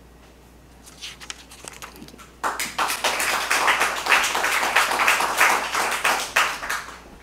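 Audience applauding: a few scattered claps at first, building into steady clapping about two and a half seconds in, then tapering off near the end.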